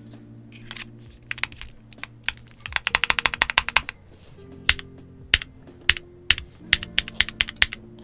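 Typing on a Luminkey80 aluminium TKL mechanical keyboard with Gateron Sylva switches and a polycarbonate plate: a few scattered key presses, a quick run of keystrokes about three seconds in, then a string of separate, sharper key presses.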